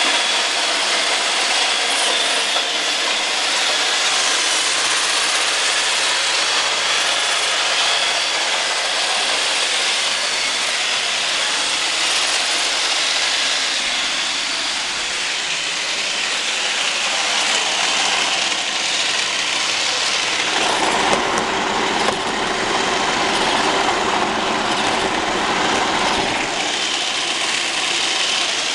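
Roomba robot vacuum running, its motors and brushes making a steady whirring noise. For several seconds about two-thirds of the way through, a lower, rougher sound joins in.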